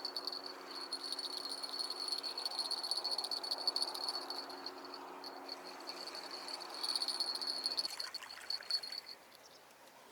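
Cricket trilling: a continuous, finely pulsing high-pitched chirr that fades out about nine seconds in. Under it, a low steady hum stops about eight seconds in.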